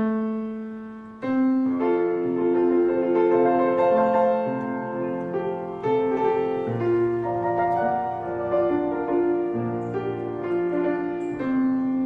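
Background piano music: a slow, gentle piece of sustained, fading chords, with a fresh chord struck about a second in.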